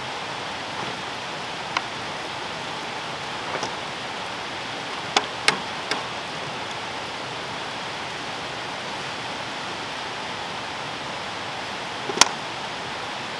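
Steady hiss of food sizzling in pans on a two-burner camp stove, with a few sharp clicks and taps of a spatula and plate, the loudest about five seconds in and near the end.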